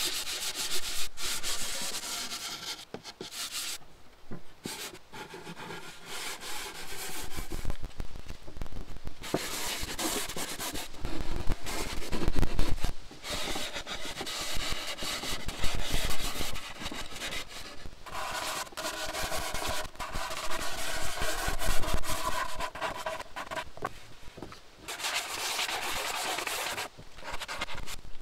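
Knotty-pine cupboard door panels hand-sanded with a sanding block: irregular scraping strokes in several bouts, with a few knocks as the boards are handled on the table.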